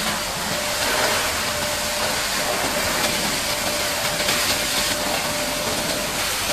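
High-pressure water spray hissing steadily against a bulldozer during washing, with a faint steady hum underneath.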